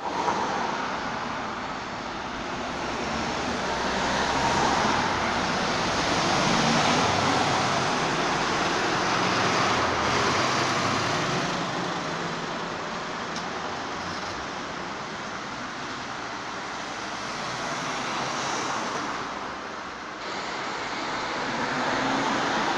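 City street traffic: articulated buses, a box truck and cars passing one after another. The tyre and engine noise is continuous and swells and fades as each vehicle goes by, loudest at about five to seven seconds in and again at about ten seconds.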